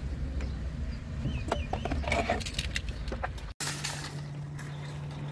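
Low hum of the Suzuki Wagon R Stingray's 660 cc engine idling in park, with a run of small clicks and a jingle of keys inside the car in the middle; after a sudden cut, a steady low hum.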